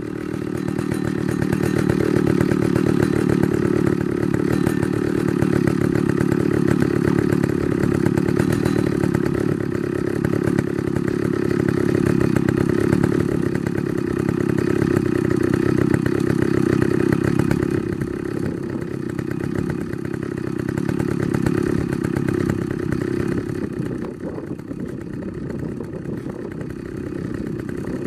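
Chainsaw engine running at a steady, fairly high speed, with small rises and falls, easing slightly in the last third.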